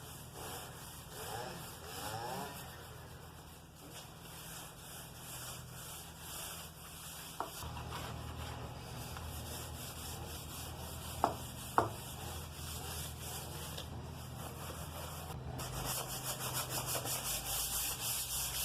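Coarse wire wool scrubbing a greasy patch of wood floor, a steady scratchy rubbing that turns into quick, rhythmic back-and-forth strokes for the last few seconds. Two sharp clicks come a little past the middle.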